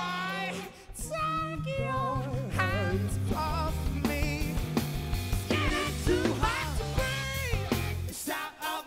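Live pop band performing: male voices sing a wavering melody over a steady bass line and guitar.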